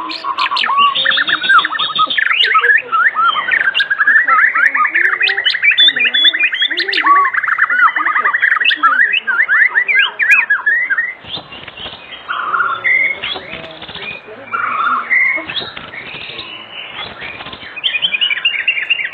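White-rumped shama in full song, running through varied whistled phrases with a long rapid trill a few seconds in, then quieter, busier chattering phrases in the second half.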